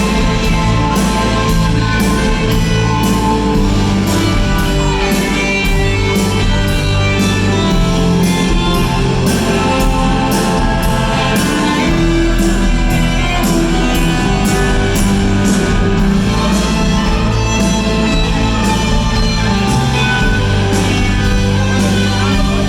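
Live rock band playing loudly: distorted electric guitars, bass and drums, with cymbal strokes marking a steady beat.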